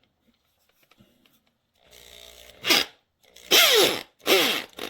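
Hammerhead 7.5-amp hammer drill run in four short bursts after a faint hum. In each burst the motor whine falls in pitch as the chuck is held by hand.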